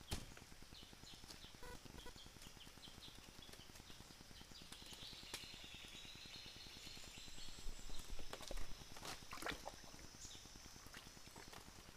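Hollow knocks and splashes from a plastic water pipe being worked in a shallow stream, over the faint steady run of the water. The knocks come as scattered clicks at first, with a louder cluster about eight to nine seconds in.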